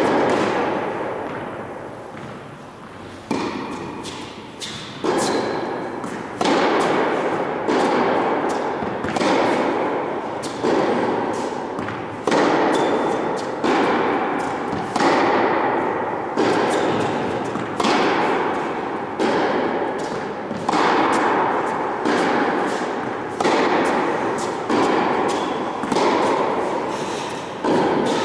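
Tennis ball struck back and forth by rackets in a rally on an indoor court, a sharp hit about every second or so. Each hit rings out in the long echo of a large hall.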